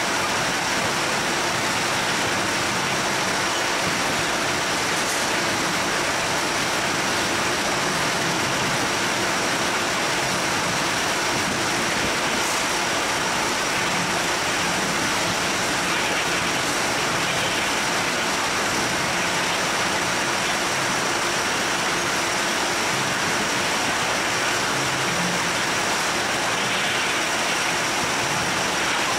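Steady machinery din of a citrus grading line running: roller conveyors carrying oranges through the sizer, with a faint steady high whine over it.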